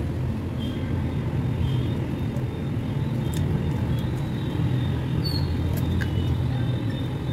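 Steady low background rumble, with a few faint clicks as a glass rim is worked around mango flesh to lift it off the skin.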